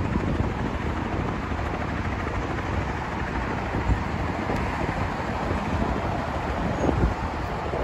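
Steady traffic noise from cars on a multi-lane road below, with wind on the microphone.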